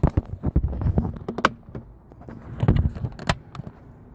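Irregular sharp plastic clicks and knocks in two bunches, from the new turn-signal switch and steering-column trim being handled and clipped into place.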